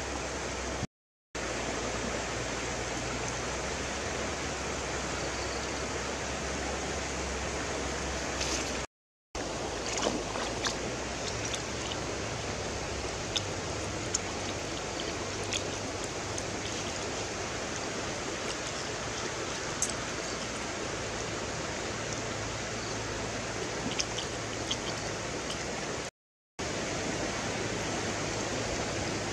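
Steady rushing of a shallow river flowing over stones, with a few faint scattered clicks. The sound cuts out to silence briefly three times.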